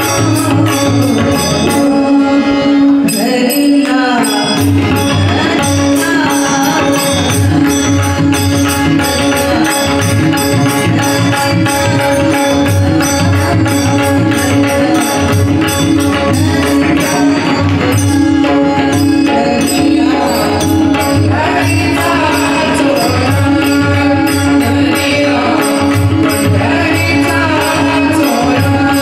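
Live Marathi devotional bhajan: a woman singing an abhang over a steady drone, with hand cymbals (tal) striking a regular beat and a drum keeping the rhythm.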